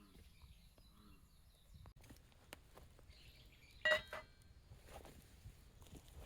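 Faint scattered clicks and knocks of small handling, with one sharper clink about four seconds in that rings briefly, and faint bird chirps.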